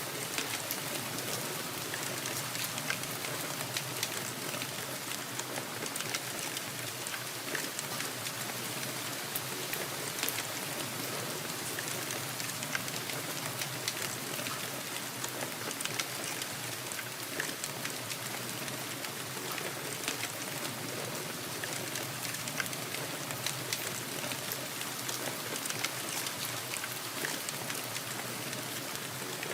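Steady rainfall: an even wash of rain noise with many individual drop ticks scattered through it, holding constant without a break.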